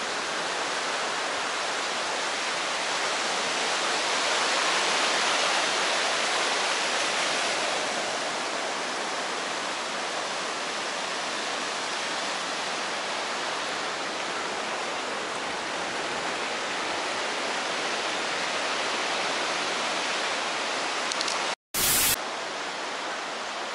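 Surf washing up a sandy beach: a steady rush of foaming waves, swelling a little about four to seven seconds in. Near the end the sound cuts out for a moment and a short burst of TV-static hiss follows.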